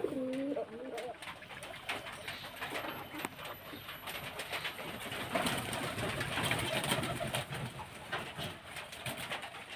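Guinea pigs and a rabbit gnawing and chewing at a cob of food: a dense run of small crunching clicks that grows louder past the middle. A short, low, wavering cooing call sounds in the first second.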